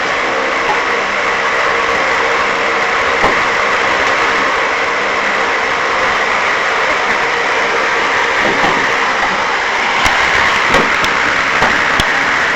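A motor running steadily, with a few sharp knocks in the last couple of seconds.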